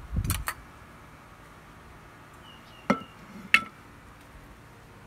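Brief rumbling handling noise, then two sharp ringing clinks of china or glass against a hard surface, about two-thirds of a second apart.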